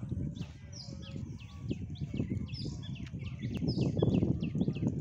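Small birds chirping, a rapid string of short falling chirps, over a dense low rumbling noise that grows louder toward the end.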